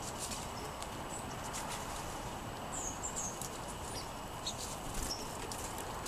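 Sparrows pecking and hopping on a wooden picnic table: a scatter of small irregular taps on the wood, with a few short, high bird chirps a little before halfway and again near the end.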